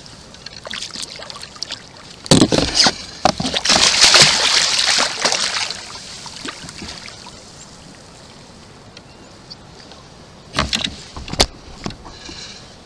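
A hooked salmon thrashing and splashing at the water's surface beside a kayak, loudest between about two and five and a half seconds in. A few sharp knocks near the end.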